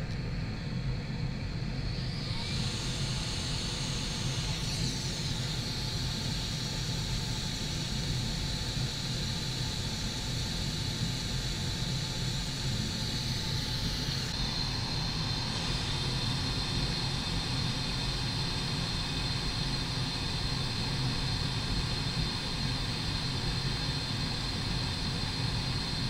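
Hot air rework station blowing steadily, a continuous whir with a thin high whine, as a small component beside a replacement MOSFET is reflowed onto its pads.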